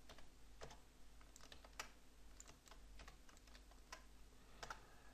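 Faint computer keyboard key presses and clicks, about a dozen at irregular intervals, over a low steady hum.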